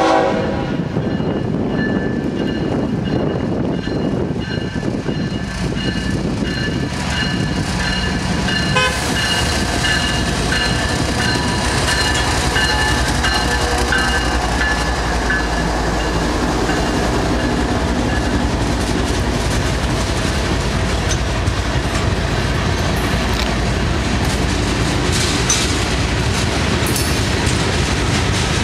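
Freight train passing close by: a short diesel locomotive horn toot right at the start, a bell ringing through the first half, and the lead diesel locomotive's engine running loud as it goes past about halfway. After it, loaded hopper cars roll by with wheels clacking over the rail joints.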